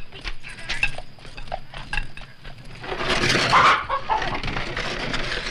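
Chicken clucking among scattered clicks and knocks, then about three seconds in a loud, noisy rush that eases into a steadier rush.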